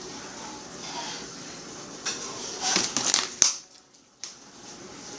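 Crunching and rustling handling noise, loudest about three seconds in, with a sharp click just after and a short drop to near silence.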